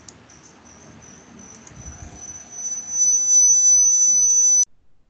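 A single high-pitched whistling tone that swells from faint to loud about three seconds in, holds steady, then cuts off suddenly near the end, over faint room noise.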